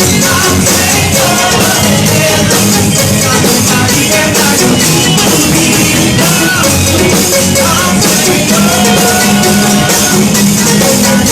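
Live church worship band playing a loud rock-style praise song, with singing voices over the band.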